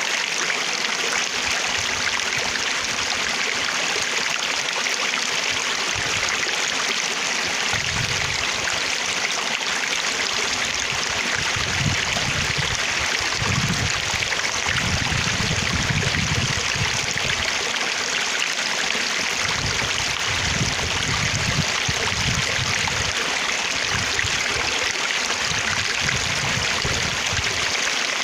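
Flowing water running continuously, a steady rushing hiss, with irregular low-pitched surges coming and going from about a third of the way in.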